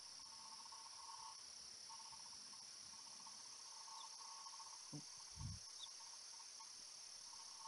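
Near silence: a faint, finely pulsing trill of night insects in trail-camera audio played back at low volume. It breaks off about a second in and resumes, and there are two soft low thumps about five seconds in.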